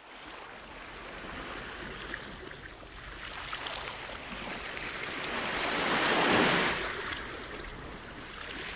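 Waves washing in as an even rushing noise, swelling to a peak about six seconds in and then ebbing.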